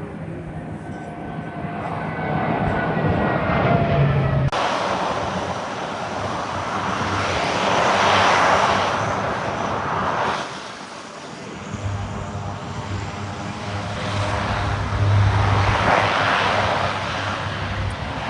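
Aircraft engines flying past, swelling up and fading away twice, loudest about eight and sixteen seconds in, with a sudden break about four seconds in.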